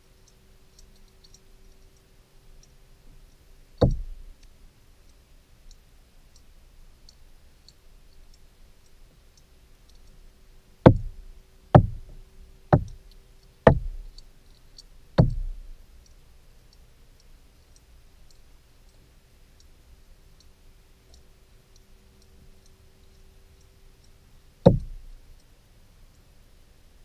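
Dull knocks picked up by an underwater camera: one about four seconds in, a quick run of five between about eleven and fifteen seconds, and one more near the end. Faint high ticking and a faint steady hum lie underneath; the hum stops near the last knock.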